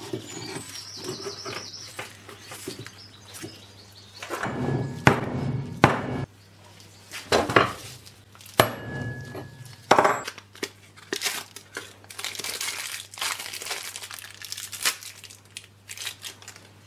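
A series of sharp metal knocks as a new ball bearing is driven down a mower deck blade spindle with a tubular drift, heaviest from about four to ten seconds in, followed by lighter clicks and clinks of metal parts being handled.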